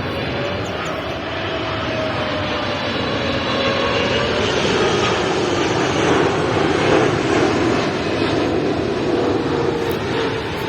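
Jet airliner passing low overhead: a loud rushing engine noise with a steady, slightly wavering whine, swelling to its loudest a little past the middle.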